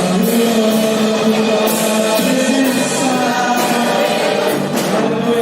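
A worship song played by a band, with sung held notes over the instruments.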